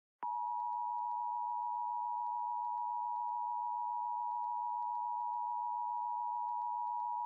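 Emergency Alert System attention signal: a steady, unbroken electronic tone that starts just after the beginning and holds the same pitch throughout, marking the start of an emergency alert broadcast.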